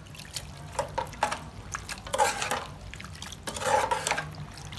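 A metal spoon stirring food in broth in a stainless steel pot: several sharp clinks against the pot, then two longer scraping, sloshing strokes through the liquid. A low steady hum runs underneath.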